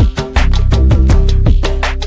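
Background music with a quick, steady drum beat, about four strikes a second, over held tones.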